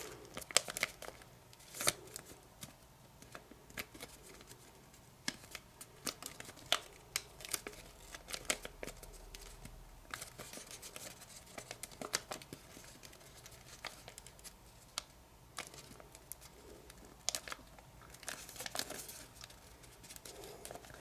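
Kami origami paper crinkling and crackling between the fingers as it is squash-folded and pinched into shape, a scatter of short, soft crackles.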